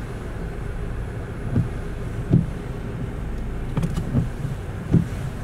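Car interior noise while driving: a steady low rumble from the engine and road, with a few short low thumps.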